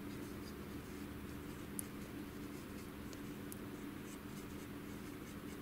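Faint scratching and dabbing of a cotton swab spreading grease along the plastic heater holder of an HP LaserJet 6L fuser, with small ticks of the swab on the plastic and a steady low hum behind.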